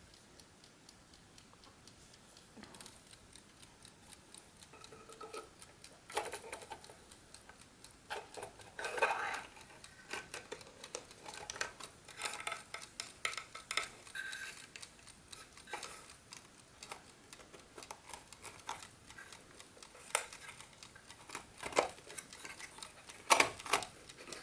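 The parts of a GARDE classic wooden mechanical chess clock click and clack as they are handled and fitted back into place. Light irregular taps run throughout, with a few louder knocks in the middle and several near the end.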